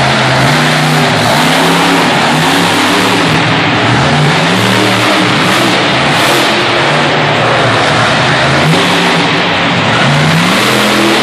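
Monster truck's supercharged V8 engine revving hard, its pitch climbing and dropping several times as the truck drives and jumps.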